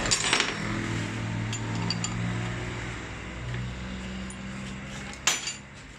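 Steel sockets and wrenches clinking on a metal workbench as they are handled, a sharp clink at the start and a louder one about five seconds in, over a low steady hum.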